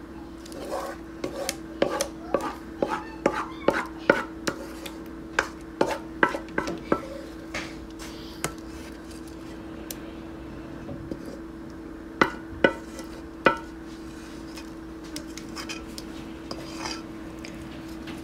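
A wooden spoon scraping thick natilla, a firm Colombian custard pudding, out of a metal pot into a baking dish. The spoon knocks sharply against the pot and dish, many times in quick succession over the first seven seconds, then three louder knocks about twelve to thirteen seconds in, and a few softer ones later.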